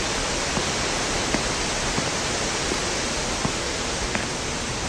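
Slow footsteps on a paved path, a faint tick about every 0.7 seconds, under a steady hiss.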